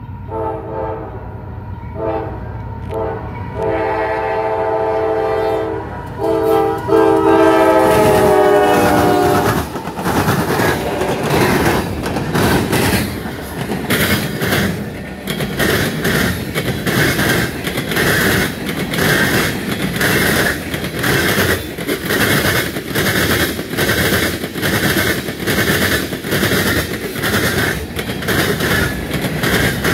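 Freight locomotive horn sounding a series of blasts, the last one long and dropping in pitch as the two GE AC44 locomotives pass close by. The freight cars then roll past with loud wheel-on-rail rumble and a steady clickety-clack of wheels over rail joints, about one click a second.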